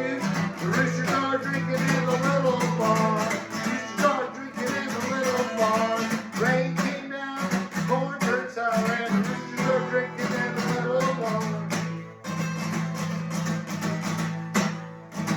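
Instrumental music led by a strummed acoustic guitar, with a wavering melody line over steady low notes. It dips briefly about twelve seconds in.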